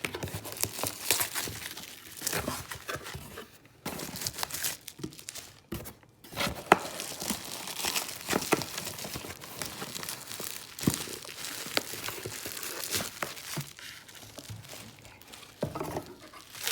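Parcel packaging being unwrapped by hand: wrapping material crinkling and tearing, with scattered sharp crackles and clicks.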